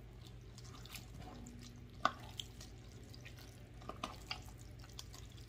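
Wooden spoon stirring elbow macaroni through thick tomato sauce in an enameled pot: faint wet squelching with a few light clicks of the spoon, the sharpest about two seconds in, over a low steady hum.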